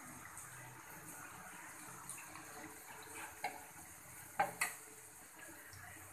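Oil sizzling steadily as batter cakes deep-fry in a pan. A spatula knocks against the pan a few times in the second half, loudest a little over four seconds in.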